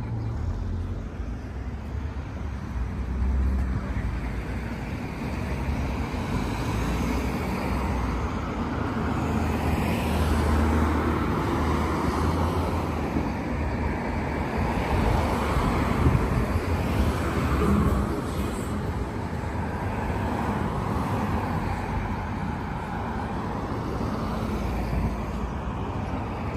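Road traffic: a steady rush of passing vehicles that swells and fades as they go by.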